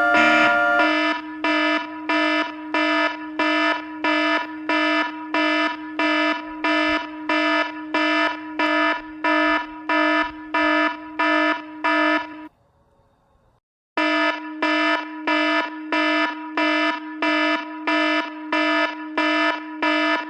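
Emergency Alert System tsunami alarm: a harsh, buzzing beep pulsing about twice a second. It breaks off for about a second and a half midway, then resumes at the same rate.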